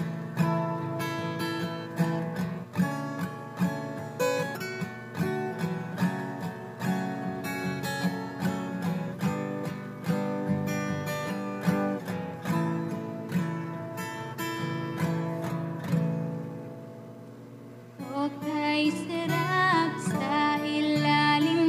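Acoustic guitar strummed and picked in a steady rhythm, an instrumental passage that fades down about sixteen seconds in. A woman's singing voice comes in over the guitar near the end.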